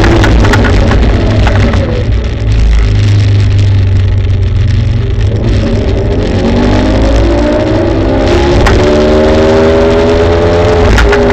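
Kaabo Wolf Warrior GT Pro electric scooter riding, with heavy wind buffeting on the microphone and road rumble. The hub-motor whine falls in pitch during the first couple of seconds as the scooter slows. Over the second half the whine rises steadily in pitch as it accelerates.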